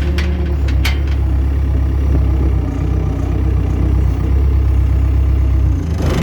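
Tractor engine running steadily while the front loader works, with a few sharp metal knocks in the first second.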